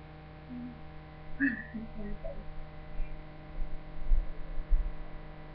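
Steady electrical mains hum, with a few faint, brief voice fragments about a second and a half in and some low bumps near the end.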